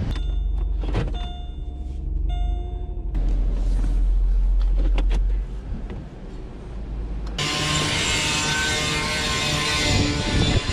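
Inside a Pontiac car, a warning chime sounds a few times about a second apart over a steady low rumble. Then the sound changes suddenly to a loud, even rushing noise.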